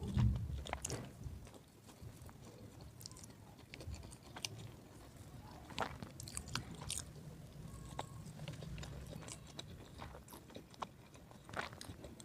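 Close-up eating sounds of instant Maggi noodles: slurping, chewing and wet mouth clicks, with a heavier low thump right at the start.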